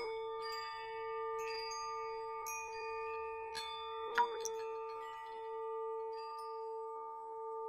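Chime-like ringing: a steady, sustained tone held throughout, with scattered light metallic strikes whose high overtones ring on and fade. The sharpest strike comes about four seconds in.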